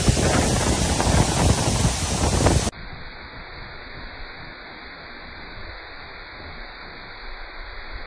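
Waterfall crashing onto rock, a loud steady rush of falling water with gusty rumbling from spray and wind hitting the microphone. About two and a half seconds in it cuts to a quieter, duller, steady rush of the same falls.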